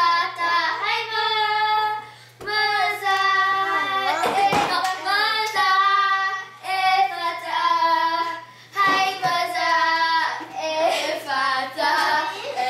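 Young girls singing a song together, with some hand claps.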